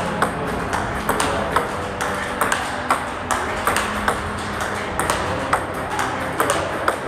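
Table tennis rally: the plastic ball clicks sharply off the bats and bounces on the table, about two to three clicks a second in an even back-and-forth. The far player makes forehand topspin drives with sticky (tacky) rubber and the near player blocks.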